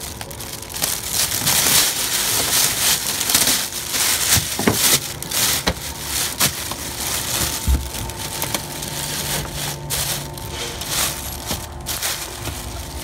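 Thin HDPE plastic bag crinkling and rustling as hands pull and bunch it off a printer.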